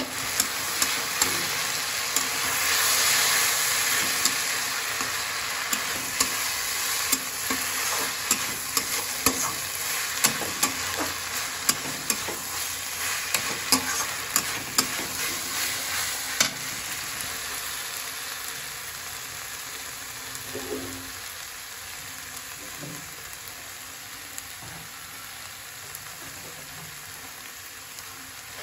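Onions, tomatoes and peas frying with freshly added ground chilli and turmeric in an iron kadhai, sizzling while a metal spatula stirs and scrapes against the pan with sharp clicks. The stirring stops a little over halfway through and the sizzle then slowly dies down.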